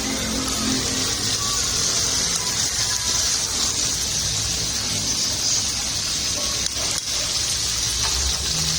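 Chicken frying in hot oil: a steady sizzle.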